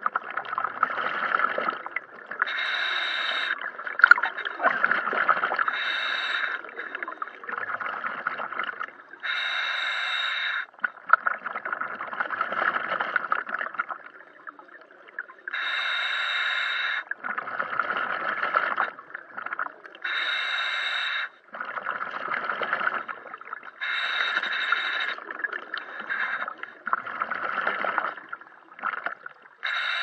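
Scuba diver breathing through a regulator underwater. A hissing inhale of about a second alternates every few seconds with a longer bubbling, gurgling exhale.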